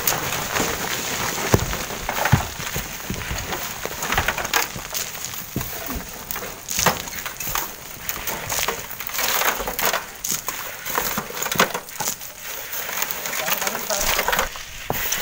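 Irregular crunching and scraping of sand and gravel, with scattered sharp knocks of stone, as the ground is walked over and worked with shovels; voices talk now and then.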